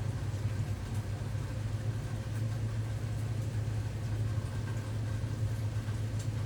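A steady low motor hum, with faint scattered ticks above it.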